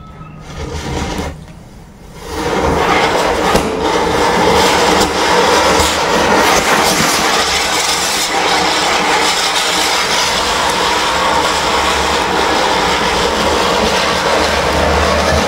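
Burning matchsticks flare briefly. About two seconds in, a Diwali ground-spinner firework (chakri) catches and spins, hissing loudly and steadily as it throws sparks, with some crackling.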